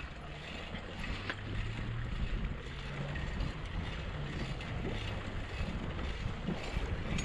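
Wind on the microphone and bicycles rolling over a dirt trail, with a few light clicks and knocks from the bikes, under a faint steady engine drone from a powered paraglider flying nearby.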